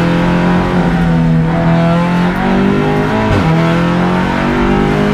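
Audi RS3 LMS race car's engine running hard under load, heard from inside the cabin. It holds a steady note, then drops briefly a little past halfway and climbs back.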